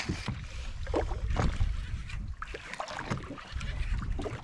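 Wind buffeting the microphone in uneven gusts over water lapping against a drifting boat's hull, with a few short knocks.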